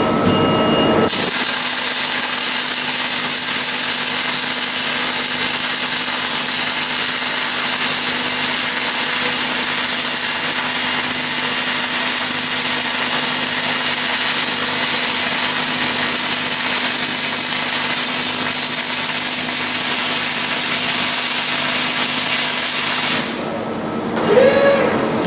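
Robotic arc welding with a Cloos 353 welding system: the arc gives a steady hiss for about twenty-two seconds, starting abruptly about a second in and cutting off near the end.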